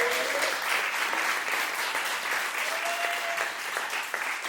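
Audience applauding steadily as the music ends, with a brief high call about three seconds in.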